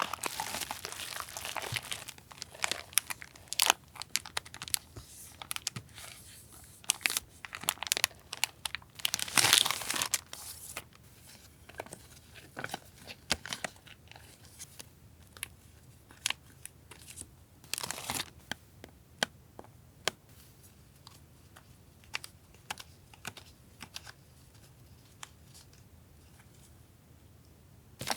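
Paper and plastic packaging crinkling and rustling as it is handled and opened, with irregular crackles and tearing, busiest in the first ten seconds or so and sparser after.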